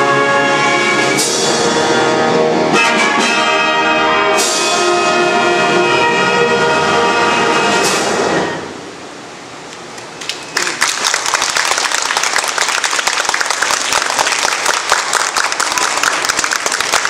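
Concert wind band, brass to the fore, plays its closing chords with several sharp accented hits, and the last chord cuts off about eight and a half seconds in. After a brief lull, audience applause starts and carries on.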